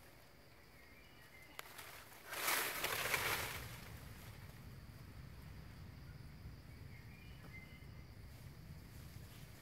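A loud rustle of dry leaves lasting about a second, a little over two seconds in. Under it runs a faint steady insect drone, with a few faint bird chirps.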